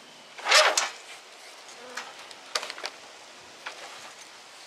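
RV awning fabric being pulled out along its rail track: a loud rasping pull about half a second in, then a few lighter scrapes and clicks.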